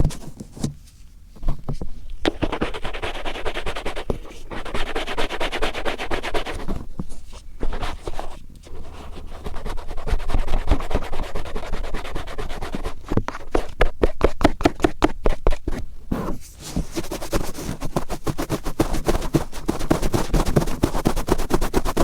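Cotton swab rubbed and scraped firmly inside an ear-shaped microphone: close, scratchy rubbing in quick repeated strokes, with short pauses where the swab is lifted, and a run of fast even strokes a little after the middle.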